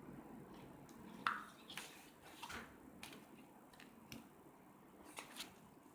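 Faint handling sounds of a learning sheet being taken out of a plastic learning board and swapped for another: a few light clicks and scrapes, the sharpest about a second in.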